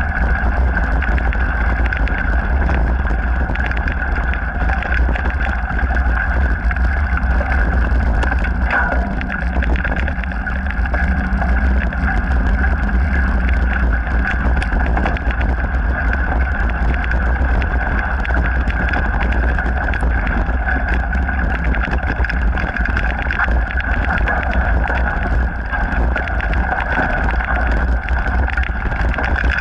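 Steady rumbling noise of a mountain bike rolling along a dirt and gravel trail: knobby tyres on the dirt and the bike's rattle, blended with wind buffeting the camera microphone.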